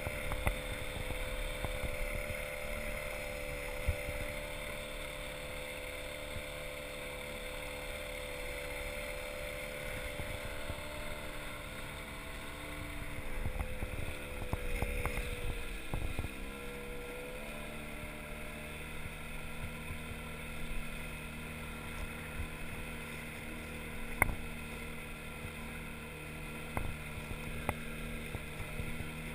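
Outboard motor driving an inflatable boat, running steadily. Its pitch dips and then climbs back about sixteen seconds in, as the throttle is eased and opened again.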